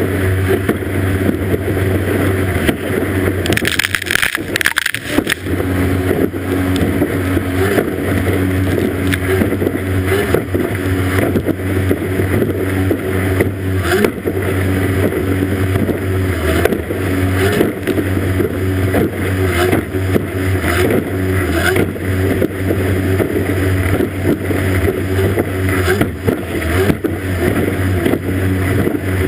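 Racing powerboat's outboard motor running steadily at high revs, with the constant rush of spray and wind. About four seconds in, a burst of water noise comes through and the engine note dips for a moment before picking up again.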